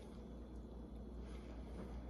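Quiet room with a steady low hum and faint, soft chewing as a man eats a lemon drop mangosteen.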